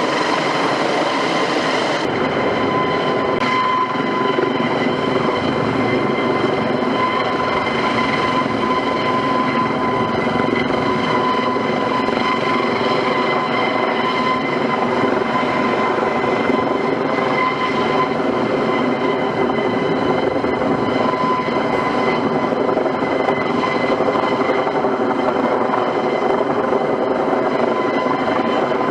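Airbus (Eurocopter) AS365 Dauphin twin-turbine helicopter running steadily: a constant turbine whine with several fixed high tones over dense rotor and engine noise.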